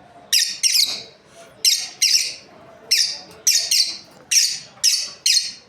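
Lovebirds giving short, loud, high-pitched chirping calls, about ten of them, mostly in quick pairs.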